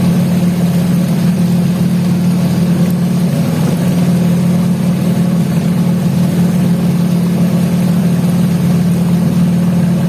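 Motorboat engine running steadily, a constant low hum with no change in speed.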